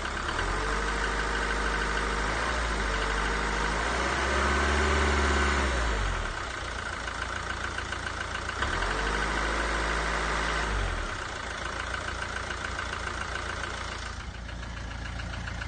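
Mercedes Sprinter OM646 four-cylinder diesel running with a suspect noise from the top of the engine, revved up twice and dropping back to idle between and after. The owner says the noise fades around 2000 rpm and suspects the hydraulic lifters or camshafts, the bottom end having been checked.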